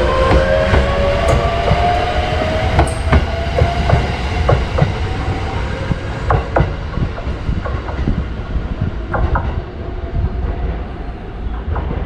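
Echigo Tokimeki Railway ET127-series electric train pulling away: its traction motors whine, rising slowly in pitch as it gathers speed, while the wheels clack over the rail joints. The sound fades as the train draws off.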